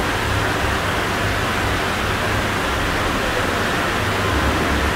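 Steady, even hiss with a faint low hum underneath: background noise with no distinct event.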